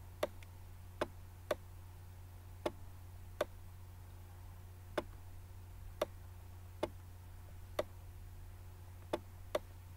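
Sharp clicks at irregular intervals, roughly one a second, made while a word is being handwritten on the screen, over a steady low electrical hum.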